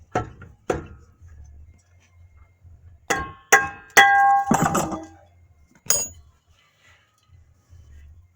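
Metal clinks and clanks from brake hardware and tools being handled: two knocks near the start, then a run of louder ringing metallic clanks a few seconds in, and a last clink about two seconds later.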